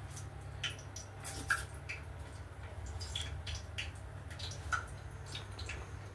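Frozen McCain tikkis shallow-frying in oil in a pan, with scattered soft pops and crackles over a low steady hum.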